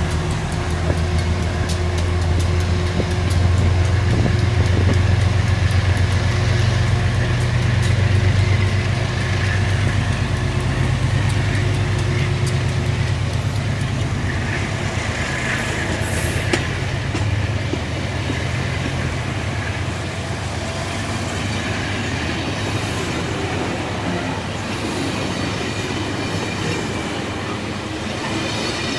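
Amtrak passenger train passing close by: a steady heavy rumble of the cars with rapid clicking of the wheels over the rail, the rumble easing after about two-thirds of the way through.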